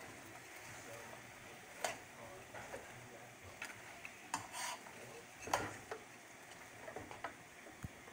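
Metal tongs clicking and scraping against a frying pan as french fries are tossed through sautéing shrimp, with a few sharp clicks over a faint steady sizzle.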